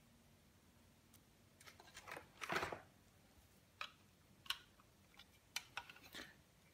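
Hands handling a coiled power-adapter cord and its packaging: soft scattered rustles and small clicks, the loudest a rustle about two and a half seconds in.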